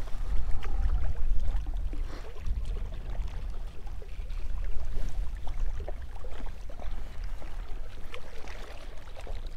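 Wind buffeting the microphone as a heavy, gusting low rumble, over small waves of choppy lake water lapping against the rocky shore.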